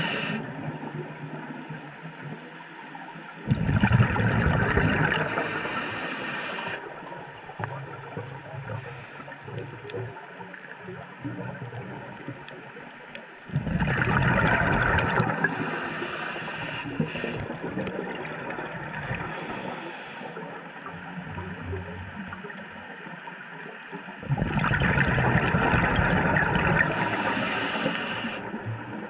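Scuba diver's exhaled bubbles from the regulator, heard underwater: three long bubbling bursts about ten seconds apart, with a quieter steady wash in between.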